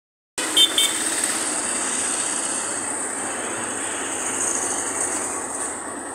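Steady roadside traffic and street noise with a constant high hiss, and two short high beeps just after the sound begins.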